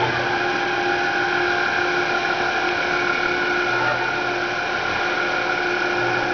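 Steady industrial machine hum with several level whining tones and a low drone that comes and goes, from a large fabric roller machine running.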